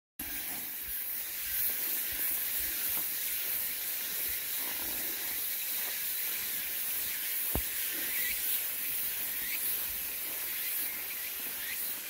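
Footsteps on a dirt and gravel trail, under a steady high-pitched hiss of outdoor ambience, with one sharp click about seven and a half seconds in.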